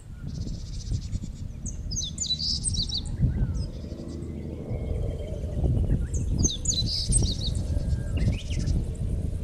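Songbirds singing in short, quick chirping phrases, one burst about two seconds in and another around seven seconds, over a steady, gusty low rumble of wind on the microphone.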